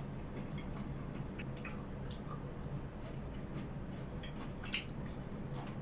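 A person chewing food with the mouth closed, close to the microphone: soft wet smacks and small clicks, with one sharper click a little before the end, over a faint steady low hum.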